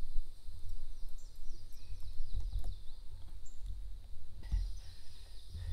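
A steady low rumble with a couple of soft knocks, and birds chirping high in the background in short falling notes.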